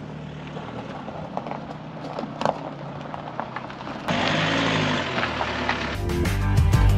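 Outdoor walking sounds, with light scattered clicks and steps over a low background rumble. About four seconds in, a louder steady rushing noise cuts in. About six seconds in, guitar music starts.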